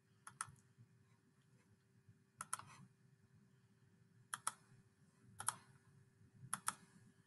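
Computer mouse clicking: five quick pairs of sharp clicks, spaced a second or two apart, over a faint steady hum.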